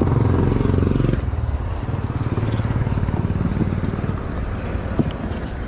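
A motor vehicle's engine running steadily, a little louder in the first second, with a brief high squeak near the end.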